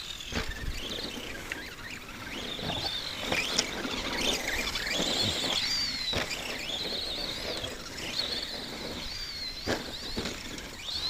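Electric motor of an Arrma Granite RC monster truck whining as it drives, the pitch rising and falling with the throttle, with a few short knocks from the truck hitting bumps.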